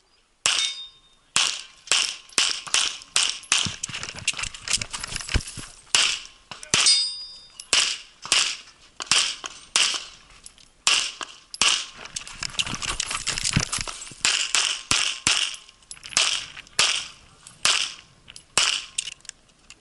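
Rapid pistol fire from a 1911-style single-stack pistol loaded to minor power factor: a long string of a few dozen sharp shots, often in quick pairs, broken by short pauses.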